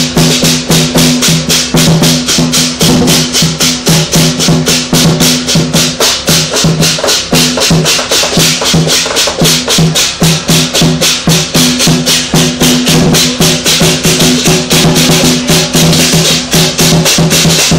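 Southern lion dance percussion: a big drum, clashing cymbals and a gong played together, with steady rapid cymbal clashes several times a second over a sustained ringing low tone.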